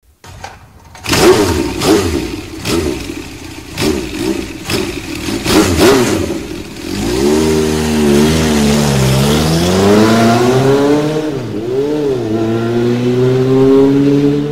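Motorcycle engine being revved: about the first seven seconds are choppy and uneven with sharp cracks, then the engine note smooths out, rising and falling in pitch with each rev before climbing and holding higher near the end.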